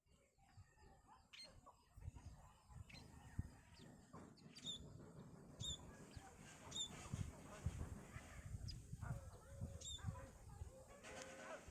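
Small birds giving short, faint, high chirps, one every second or so in the middle of the stretch, over low rumbling movement noise.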